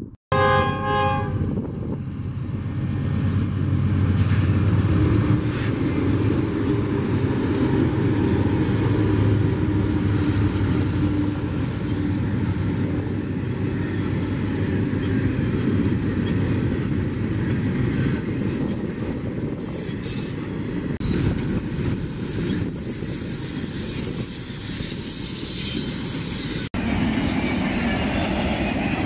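Freight train horn gives a short blast, then the diesel locomotives and double-stack container cars of a BNSF intermodal train run past with a steady heavy rumble and rail clatter. Thin, high wheel squeal comes and goes midway.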